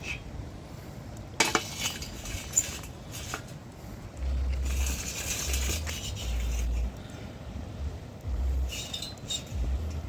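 Metal cookware and utensils clinking: a few sharp knocks in the first few seconds, a short hiss midway, and more light clinks near the end.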